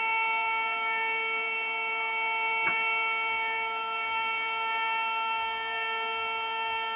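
Homemade jointer with a 155 mm planer cutterhead running, giving a steady, high-pitched whine. There is a single brief tick about two and a half seconds in.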